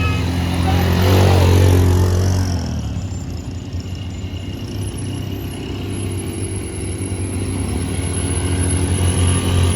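Motor vehicle running on the road: a steady low engine and road hum, swelling louder for a second or so about a second in.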